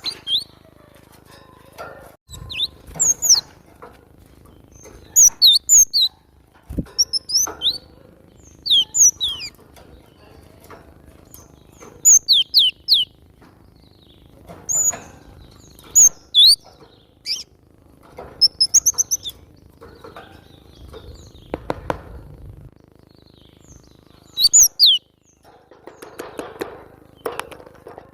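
Cinereous tit (glatik batu) singing in short bursts of quick, high, sharply falling notes, a burst every second or two.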